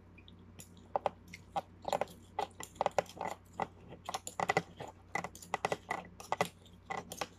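A metal spoon and fork clicking and scraping against a ceramic plate as a piece of beef shank is pulled apart, in a quick, irregular run of clicks, with close-miked chewing.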